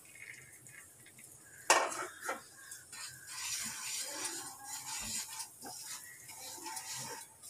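Wooden spatula stirring and scraping wheat flour through hot ghee in a non-stick kadai, roasting the flour for halwa. A sharp knock about two seconds in, then irregular scraping with a few lighter knocks.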